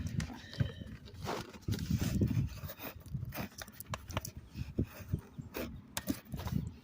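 Handling noise from working a part of a toy's plastic packaging loose by hand: scattered sharp clicks and knocks with irregular low bumps.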